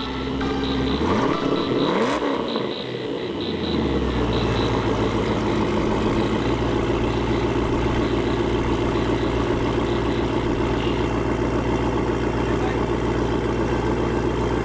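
Car engine idling steadily from about four seconds in, after a brief rise and fall in pitch near the start.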